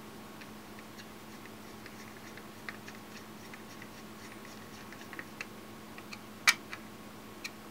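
Small irregular clicks of a screwdriver turning a screw in the plastic clamp of a knife-sharpening system, with one sharper click about six and a half seconds in.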